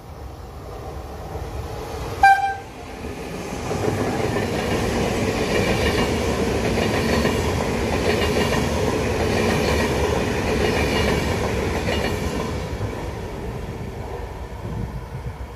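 Double-deck Vivalto regional passenger train passing at speed. Its horn gives one short toot about two seconds in, then the rumble and wheel clatter build, are strongest in the middle and fade away near the end.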